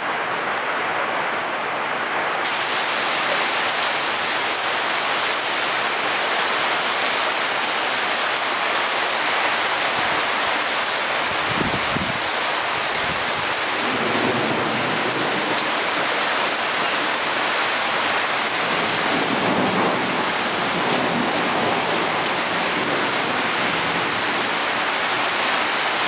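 Steady rain falling, an even hiss, with low rumbles of thunder through the middle stretch.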